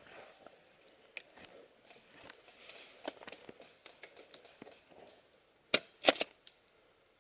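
Faint rustling and small ticks, then a sharp clack a little before six seconds in, followed at once by a louder quick pair of clacks.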